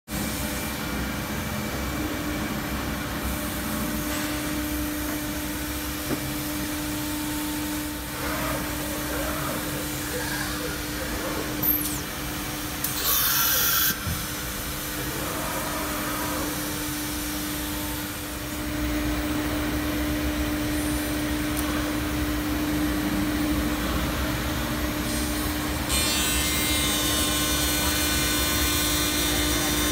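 MultiCam MG Series CNC router running, its spindle and dust extraction giving a steady hum with a held tone. A short loud hiss comes about halfway through, and the machine gets louder near the end.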